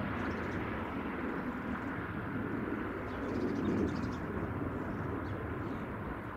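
Jet airliner engines, a steady broad rush that eases off slightly toward the end. Faint high bird chirps come in about halfway through.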